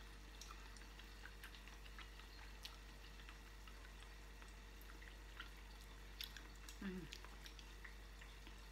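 Near silence: faint chewing and small mouth and finger clicks of someone eating crispy squash fritters, with a brief voiced 'mm' about seven seconds in, over a steady low electrical hum.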